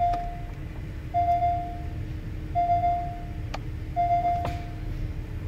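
A 2015 Porsche Cayenne's in-cabin warning beeper sounding four times, evenly spaced about one and a half seconds apart, with the car in reverse, over a low steady hum.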